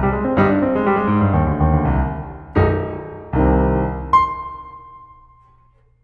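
Background piano music: a few struck chords, then a single high note a little past four seconds in that rings and fades away.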